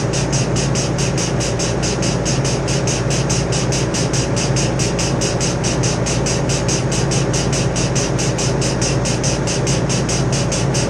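Walk-in cooler's refrigeration condensing unit running: a steady compressor hum with a fast, even pulsing hiss about five times a second over it.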